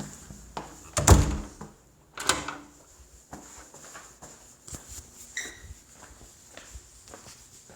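A door thuds shut about a second in, followed by a lighter knock about a second later, then only faint clicks.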